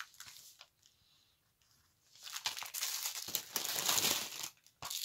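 Small plastic sachets of diamond-painting drills crinkling as a hand rummages through them. The rustle starts about two seconds in and lasts some two seconds.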